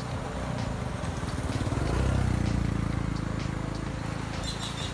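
An engine drone swells to its loudest about two seconds in and then fades, like a motor vehicle passing by. Faint bird chirps start near the end.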